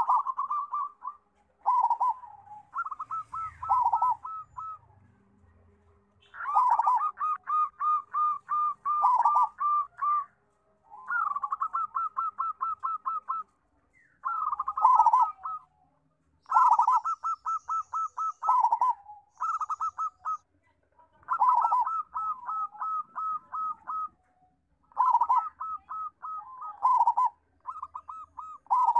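Local-strain zebra dove (perkutut) singing: phrases of rapid, clipped coo notes at about one pitch, several ending on a lower note, repeated with short pauses between them.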